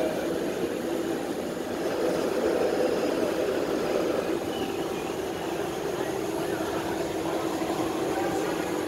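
Interior of a streetcar in motion: a steady running hum of the car's motors and wheels on the rails, with a constant low tone underneath.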